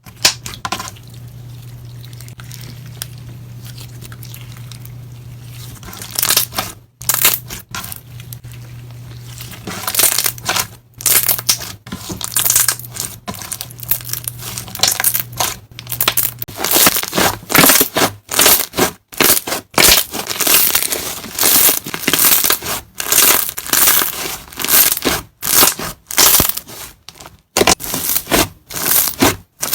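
Thick, glossy slime being squished and pressed by hand, giving repeated crackling, popping squelches, about one or two squeezes a second in the second half. A steady low hum with little else fills the first few seconds.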